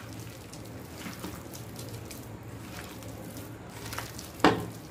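Hand kneading and squishing marinated chicken pieces with gram flour (besan) and rice flour in a stainless steel bowl: soft squelching and rustling, with one sharp knock near the end.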